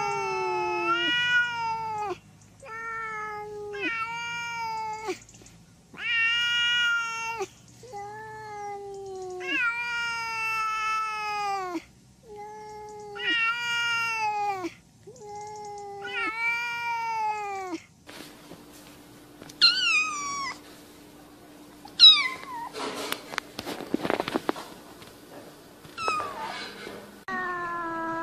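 Domestic cat meowing over and over, about a dozen drawn-out meows, each dropping in pitch at the end. About two-thirds of the way through, this gives way to a few shorter, higher cat cries that fall steeply, with a brief scuffling noise between them.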